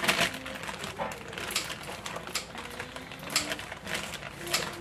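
Thin plastic bag crinkling and rustling in irregular crackles and clicks as kimchi is pulled out of it with chopsticks.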